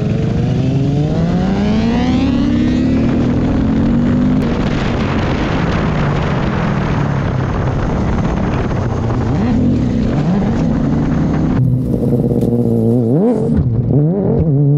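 Motorcycle exhaust recorded right beside the muffler, the engine accelerating with its pitch climbing over the first three seconds, then running at speed under a rush of wind and road noise. In the last few seconds the engine is revved several times, each rev rising quickly in pitch.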